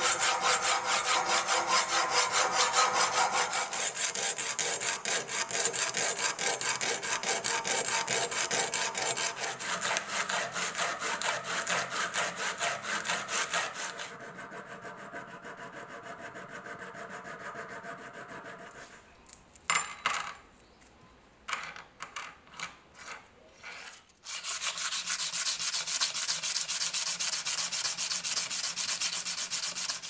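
A hacksaw cutting through a brass tube held in a vise, in quick, even back-and-forth strokes. About halfway through, a hand file works the cut end of the brass: a few light, separate strokes, then a steady run of strokes near the end.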